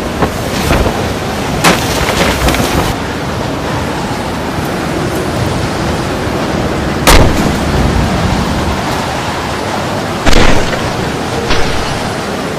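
Typhoon wind blowing hard over the microphone as a loud, steady rushing noise, broken by several sharp bangs, the loudest about seven and ten seconds in.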